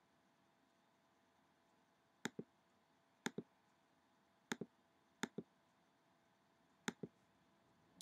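Computer mouse clicking: five double clicks, each a press and release in quick succession, spread over a few seconds.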